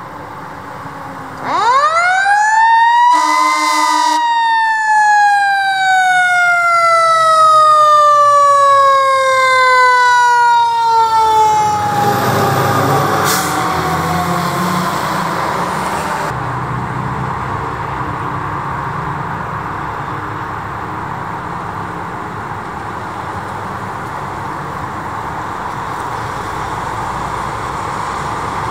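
Fire truck's mechanical siren winding up to a high wail in about two seconds, then coasting slowly down in pitch over about eight seconds, with a short horn blast near the peak. After that, the truck's engine and road noise carry on as it passes.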